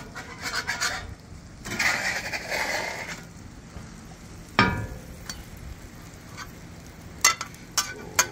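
Metal spatula scraping across the steel top of a Traeger Flatrock griddle as it works under an omelet, over a faint steady sizzle. A sharp knock comes about halfway, and a few sharp clicks near the end as the omelet goes onto a plate.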